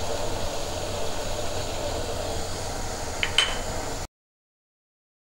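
Tomato sauce and vegetables simmering in a wok: a steady hiss, with a couple of faint clicks a little after three seconds in. The sound cuts out abruptly to silence about four seconds in.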